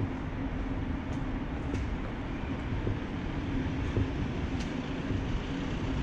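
Steady low rumble of city street traffic with a constant low engine hum, and a few faint clicks.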